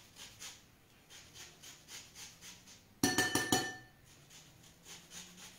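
Metal hand grater rasping lemon zest in light, regular strokes, broken about three seconds in by about four quick ringing clinks as the grater knocks against the ceramic bowl, then the faint rasping resumes.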